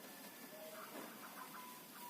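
Faint drawn-out cooing notes of a perkutut (zebra dove): a short lower note about half a second in, then a longer, slightly higher note from about a second in.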